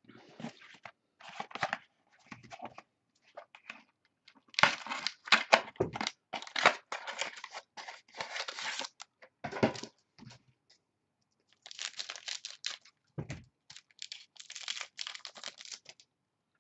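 Wrapper of a football trading-card pack being torn open and crinkled by hand, in irregular rustling bursts with short pauses, plus a couple of low knocks about ten and thirteen seconds in.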